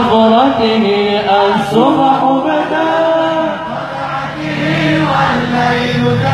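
Male voices chanting a devotional melody in long held notes with ornamented glides between pitches, the drums silent.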